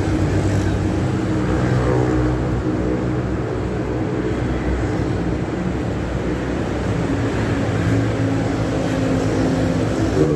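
Steady, loud low drone of a running engine, holding several low pitched tones that waver slightly without a break.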